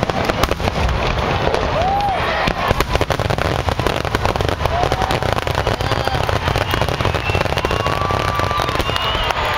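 Fireworks going off in a rapid, unbroken barrage of bangs and crackles, with spectators' voices in the mix.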